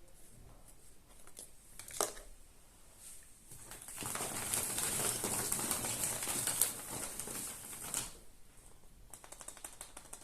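Foil wrapper of a Kinder Surprise egg crinkling as it is torn and peeled away, loudest for about four seconds in the middle. There is a sharp click about two seconds in and a run of quick light ticks near the end.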